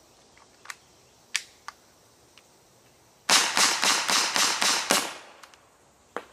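Umarex TR50 .50-caliber CO2 revolver fired in a rapid string of shots, all packed into under two seconds. Before them come a few sharp clicks as the gun is handled, and one more click near the end.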